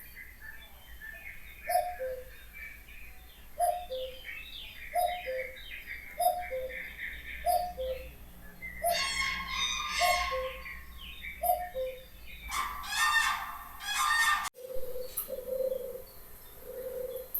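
Several birds calling. A low two-note call, the second note lower, repeats about every second and a half among higher chirps. Two louder stretches of rapid chattering come about 9 and 13 seconds in, and the sound breaks off abruptly near the end before low calls go on.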